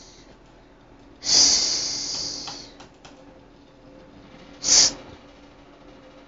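Five-month-old baby letting out two high-pitched shrieks: a longer one about a second in that fades away, and a short sharp one a few seconds later.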